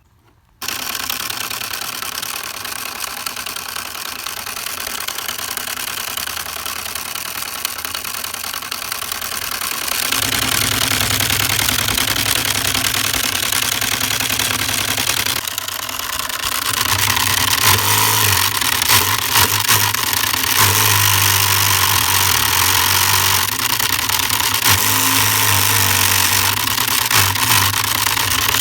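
Homemade model engine built from an old toy gun running with a steady mechanical whir and rattle. It starts suddenly about half a second in, then gets louder about ten seconds in and again near seventeen seconds.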